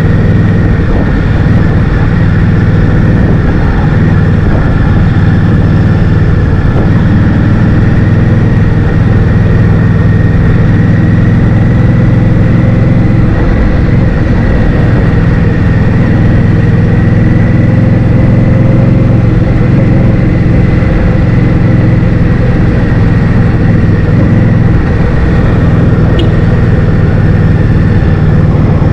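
Loud, steady wind buffeting on the microphone of a moving scooter, over a constant engine hum with a thin, steady whine.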